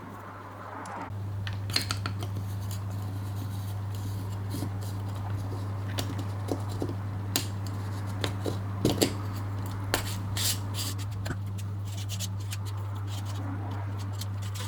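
Small metal tools and lens parts clicking and scraping against each other at irregular intervals, over a steady low hum.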